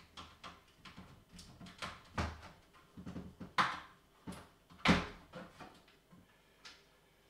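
Irregular clicks and knocks as the power supply is lifted out of a Thomson TO9 computer's case, with two louder knocks about three and a half and five seconds in.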